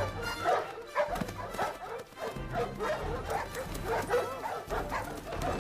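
Dogs barking and yipping over and over, against background music.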